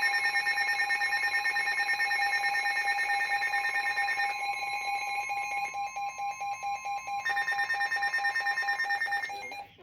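A weather radio sounding the warning alarm for a severe thunderstorm warning. It is a steady, loud NWS attention tone with a rapid, pulsing electronic beep over it, and both stop shortly before the end.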